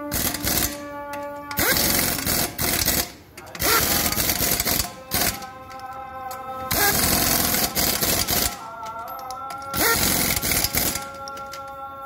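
Pneumatic impact wrench hammering on a van's wheel lug nuts in about five rapid-fire bursts of a second or so each. A steady whine sounds between the bursts.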